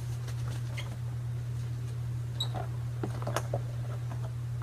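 Small scrapes, clicks and rubbing as a soft soap loaf is worked out of its translucent loaf mold by hand, with a steady low hum underneath.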